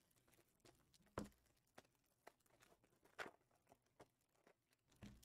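Near silence with a handful of faint, light taps and clicks from handling trading card boxes and packs on a table. The two clearest come about a second in and about three seconds in.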